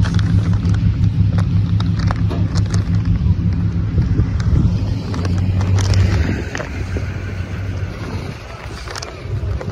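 A motor vehicle engine running with a steady, deep drone that fades away about six to seven seconds in, with a few faint clicks over it.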